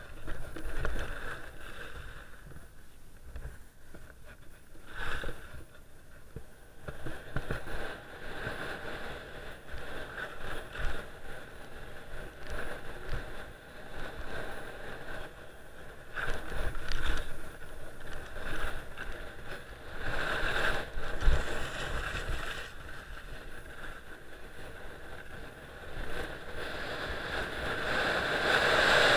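Skis sliding and scraping over packed snow during a downhill run, with wind rushing over the action camera's microphone. The noise swells and falls unevenly, and grows steadily louder near the end as speed builds.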